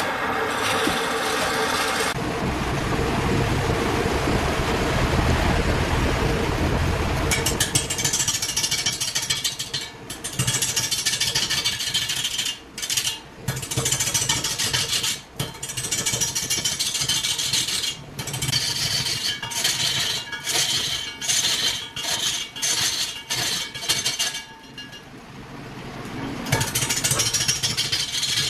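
Large wood lathe turning a big log, its motor running steadily. From about seven seconds in, a hand-held turning tool cuts into the spinning wood in repeated passes: a hissing scrape broken by short gaps as the tool lifts off, with a longer pause a few seconds before the end.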